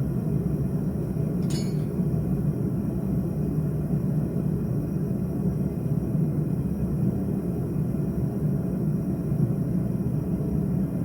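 Forge running with a steady low roar, with a single light metallic clink about a second and a half in.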